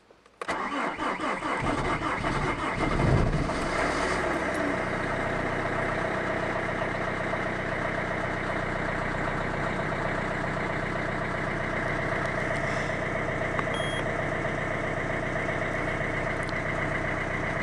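Peugeot 206 1.4 HDi four-cylinder diesel cold-started at about −12 °C. The starter cranks for about two and a half seconds, the engine catches with a brief rise in revs about three seconds in, then settles into a steady idle.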